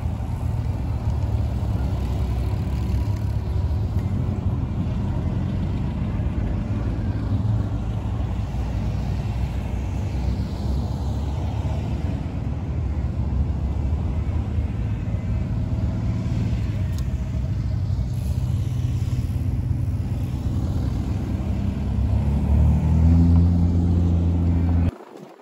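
Classic cars driving past one after another, their engines running. Near the end one car accelerates, its engine rising in pitch and getting louder, before the sound cuts off abruptly.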